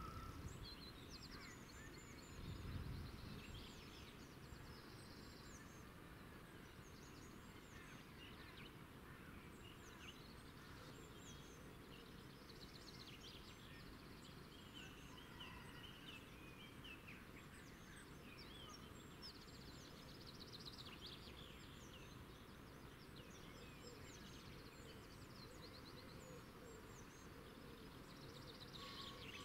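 Faint ambience of small birds chirping and twittering, with a brief low rumble about three seconds in.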